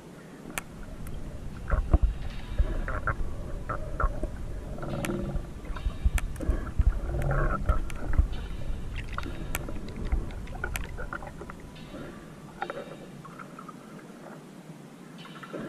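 Underwater sound picked up by a camera held below the surface: a muffled low rumble and gurgling with scattered sharp clicks. It is louder for most of the first part and quieter near the end.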